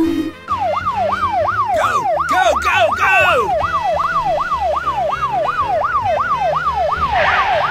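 An electronic siren in fast yelp mode, its pitch sweeping up and down about three times a second. A few falling whistle-like glides sound about two to three seconds in.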